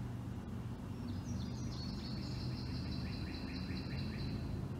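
A bird sings a rapid trill of evenly repeated high notes, starting about a second in and stepping slightly down in pitch before stopping near the end, over a steady low rumble of background noise.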